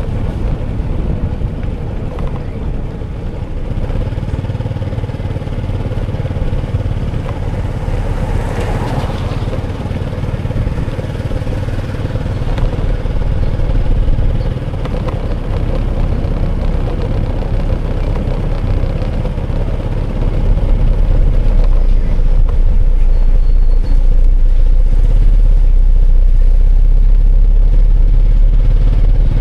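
A road vehicle's engine running steadily, with a heavy low rumble that grows louder about two-thirds of the way through.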